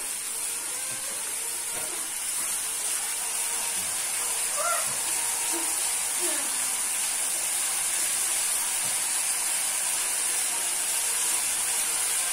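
Ginger, garlic and green-chilli paste sizzling steadily in hot oil in a nonstick kadai as it is stirred with a spatula; the sizzle grows a little louder over the first few seconds.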